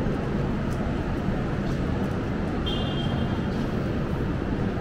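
Steady hubbub of a busy railway station concourse: distant chatter and a constant low rumble, with a brief high electronic tone a little over halfway through.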